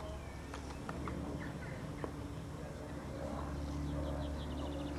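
Outdoor field ambience: a steady low hum with faint bird chirps and a few light clicks.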